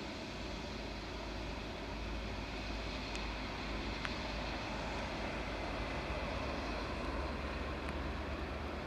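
Boeing 777-200ER's Rolls-Royce Trent engines at taxi power, a steady distant rumble and whine as the airliner taxis, with a few faint ticks.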